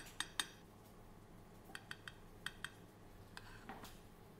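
Faint, light clinks of a metal spoon against a ceramic bowl and plate as sauce is spooned and flicked onto the plate. There are about eight small taps, mostly coming in pairs.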